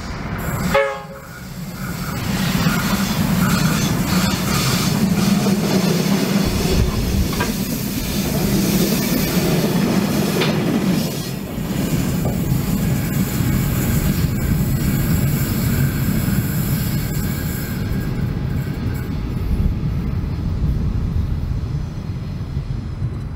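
Diesel-hauled track-inspection train passing: locomotive diesel engines running and steel wheels on the rails, with a brief horn note about a second in.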